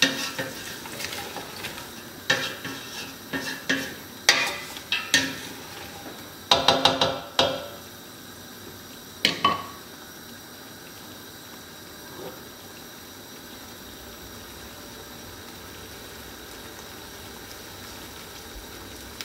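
Wooden spoon stirring and knocking against a stainless steel pot of vegetables, in irregular knocks and scrapes with a quick cluster about six and a half seconds in and one last ringing knock about nine seconds in. After that only a low steady sizzle of the vegetables cooking in the pot.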